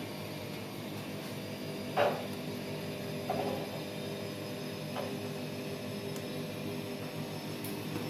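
Steady low mechanical hum of washing machines running, with a short sharp sound about two seconds in and two fainter ones around three and five seconds in.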